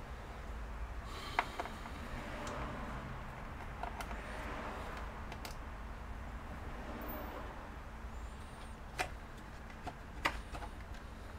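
A few sharp clicks and light knocks of computer parts and tools being handled, scattered over a steady low hum.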